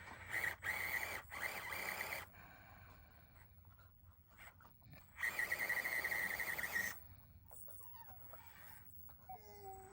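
Micro-scale RC crawler's small electric motor and gearbox whining in two throttle bursts of about two seconds each, working under load up a steep dirt hill.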